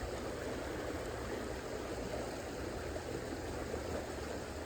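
Steady rushing and babbling of a small mountain creek.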